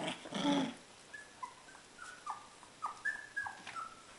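Young Siberian husky puppies whimpering: a brief louder cry at the start, then a string of short, high squeaks and whines, about three a second.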